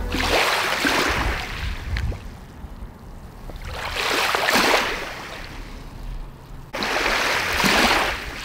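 Waves washing in on a shore: three swells of rushing water a few seconds apart, each building and falling away, the last one cutting in suddenly.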